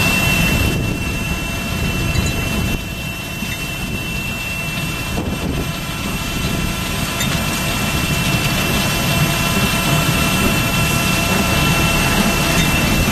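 Heavy equipment engines running steadily at a truck unloader taking asphalt millings from a bottom-dump trailer, with a constant high-pitched whine over the low engine noise.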